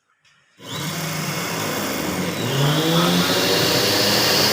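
Motor spinning an ignition trainer, switched on about half a second in. It speeds up with a rising whine and then runs steadily with a high hiss, turning the engine over so the electronic ignition fires the spark plug.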